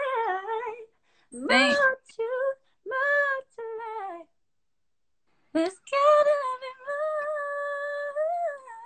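A woman singing wordless runs and held notes with no accompaniment. There is a short pause about four seconds in, then one long held note that bends upward near the end.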